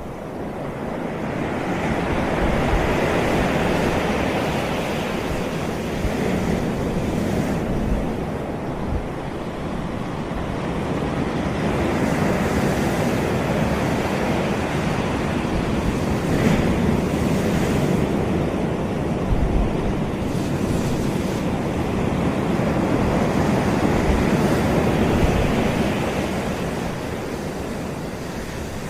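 Surf breaking and washing up a sandy beach, a steady rush that swells and eases in slow waves several times, with some wind buffeting the microphone.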